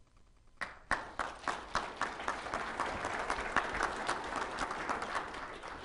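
Audience applauding. It starts about a second in with a few sharp claps and continues as steady applause made of many overlapping claps.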